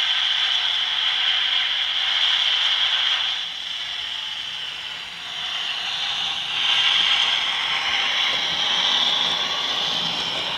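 OO gauge model train, a diesel locomotive hauling a rake of coaches, running along the track: a steady hissing rumble with no bass, dipping for a second or so midway and swelling again towards the end.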